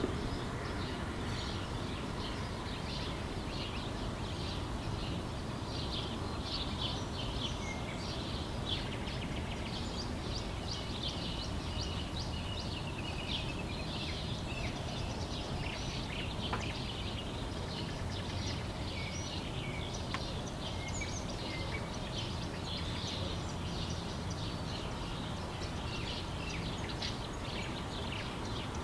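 Small birds chirping and twittering continuously, many short calls overlapping, over a steady low rumble.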